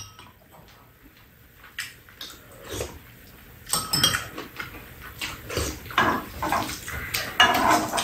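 Close-up eating sounds: metal spoons clink and scrape against a pan and bowls, with chewing and lip-smacking of a chicken and radish-kimchi stir-fry. It is quieter at first and gets busier about halfway through.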